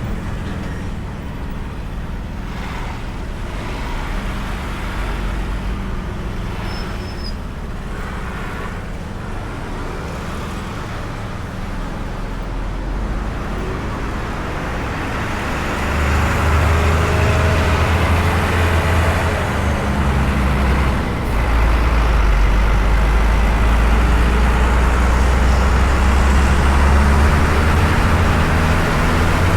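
Ride on a Honda Beat single-cylinder automatic scooter heard from a camera mounted on the bike: steady engine and road noise with surrounding city traffic. The low rumble grows clearly louder about halfway through.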